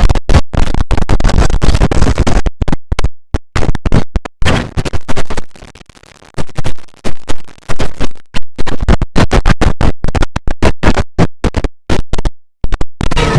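The IBM OS/2 Warp 3 shutdown sound run through editing effects and chopped into a rapid stutter of short fragments that cut in and out abruptly. There is a near-silent gap about six seconds in and a brief dropout near the end.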